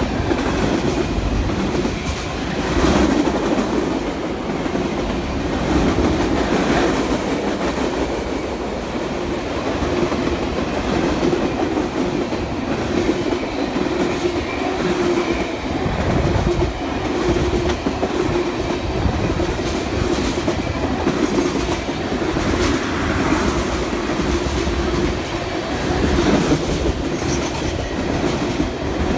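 A train rolling along the tracks with a steady running noise, its wheels clacking over rail joints every few seconds.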